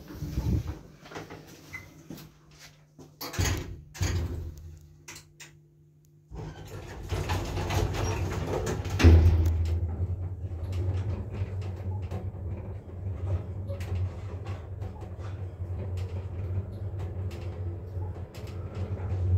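Otis Europa 2000 traction lift, modernised with two-speed control: clicks and knocks of the doors and buttons for the first six seconds. From about six seconds in, a steady low rumble and hum as the car travels upward, with a louder thump about nine seconds in.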